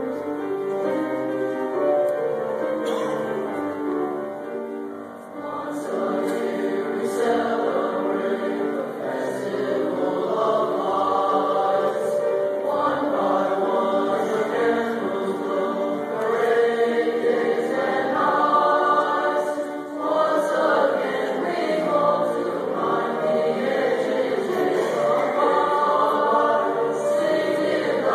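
A junior high school choir singing a Christmas song in several voice parts.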